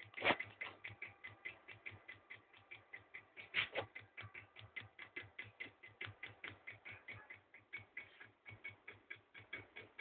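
Home-built reed-switch magnet pulse motor running, clicking rapidly and evenly at about six clicks a second as the rotor's magnets pass the coil and switch, with two louder knocks, one just after the start and one about a third of the way in.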